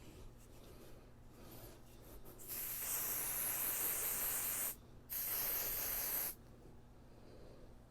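Aerosol can of smoke-detector test spray (simulated smoke) hissing in two bursts, the first about two seconds long and the second about one second, sprayed at a smoke alarm to set it off.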